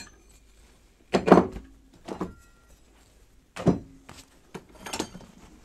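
Hand tools and small items being taken out of a soft tool bag and set down on a workbench: four separate clunks and rattles, the loudest about a second in.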